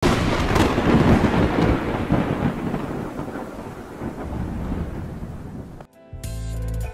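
A deep rolling rumble over a steady hiss, loudest at the start with two sharp cracks in the first two seconds, fading away over about six seconds. It cuts off just before the end, and music with a deep bass begins.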